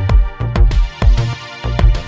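Background electronic music with a steady beat of deep thumps.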